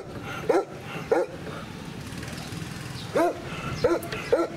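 An old dog barking: a run of short barks about half a second apart, a pause of about two seconds, then another run of three.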